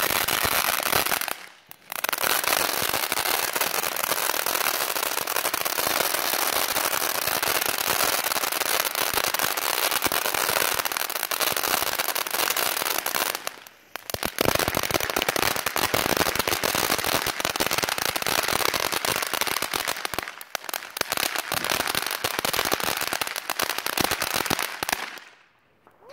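Ground fountain firework spraying sparks: a continuous dense crackling hiss. It cuts out briefly a couple of times and stops about twenty-five seconds in.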